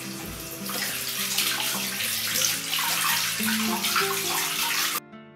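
Water running from a single-lever mixer tap into a bathroom washbasin, a steady splashing stream that stops abruptly near the end.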